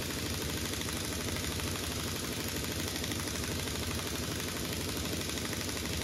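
Pneumatic air impact wrench hammering steadily as it drives a threaded rod anchor up into a ceiling, the rapid impacts running at an even level.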